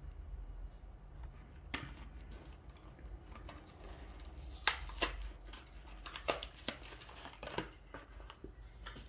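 Hot Wheels blister pack being opened: crinkling plastic and card with scattered sharp clicks and snaps, and a longer rustle about four seconds in.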